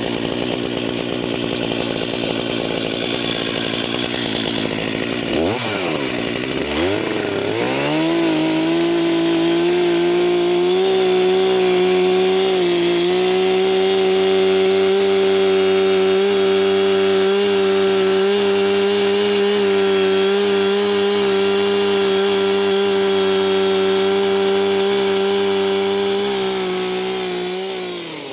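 A motorised saw: a rough, noisy run for the first few seconds, then the motor winds up over a couple of seconds and holds a steady high pitch for about twenty seconds before cutting off near the end.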